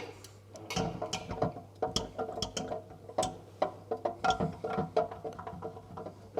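Workshop crane hoist lowering a crankshaft with its connecting rods into the crankcase: irregular metallic clicks and ticks from the hoist and chain, over a faint steady hum.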